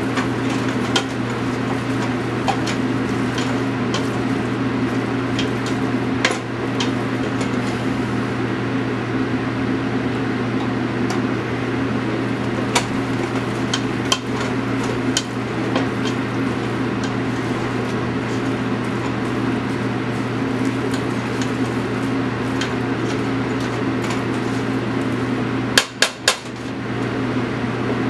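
A utensil stirring a flour-and-butter roux as it browns in a pan, with scattered clicks against the pan, over a steady hum; a quick run of three sharper taps near the end.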